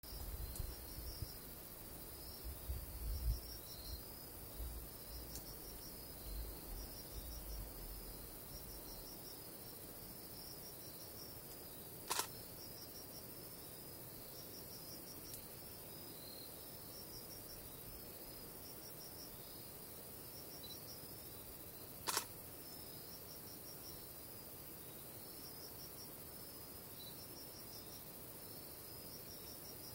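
An insect chirps over and over in short trains of rapid pulses. Two sharp camera shutter clicks come about a third and two-thirds of the way through. A low rumble runs under the first few seconds and then fades out.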